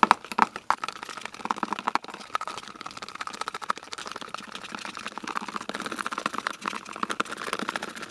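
Metal spoon stirring thick dish soap fast in a plastic bowl, whipping air into it: a dense run of quick clicks, taps and wet squelches.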